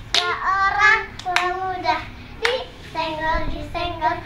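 Two children singing a sing-song clapping-game chant, with several sharp hand claps as they slap their palms together.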